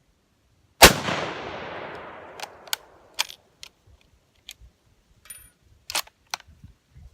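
A single rifle shot from a 6.5x55 Swedish Mauser, one sharp report with a rolling echo that dies away over about two seconds. It is followed by several lighter metallic clicks as the bolt is worked to eject the case and chamber the next round.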